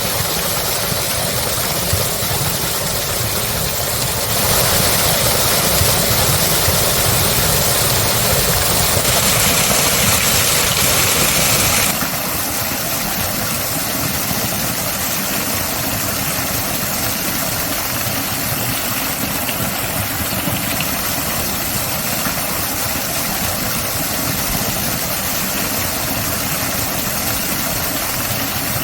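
Park waterfall: water falling and splashing in a steady rush, louder for several seconds from about four seconds in.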